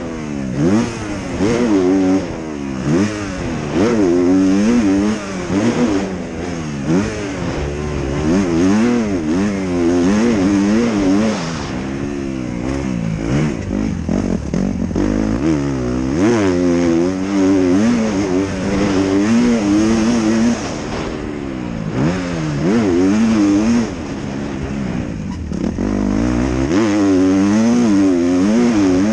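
Motocross bike engine heard from the rider's helmet camera, revving up and falling off over and over as the throttle is opened and closed, its pitch rising and dropping every second or two. Twice past the middle it goes quieter for a couple of seconds before pulling hard again.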